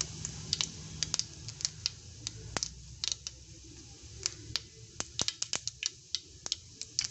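Mustard seeds and urad dal spluttering in hot oil in a pan for a tempering: quick, irregular pops and crackles, several a second, over a low steady hum.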